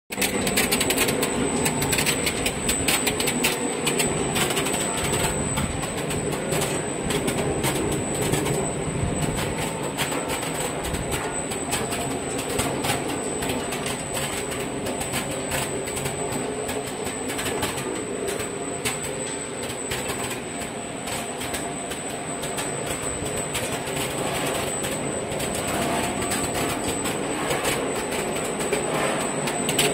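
Optical color sorter running on dried red dates (jujubes): a steady mechanical clatter thick with rapid clicks, over a thin steady high whine.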